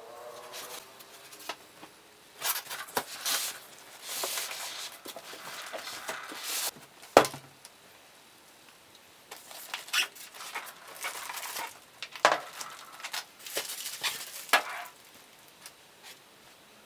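Packaging being handled: cardboard box and styrofoam end caps scraping and rustling in a run of irregular bursts as the packed heater is slid out, with crinkling plastic wrap and a sharp knock about seven seconds in, the loudest sound.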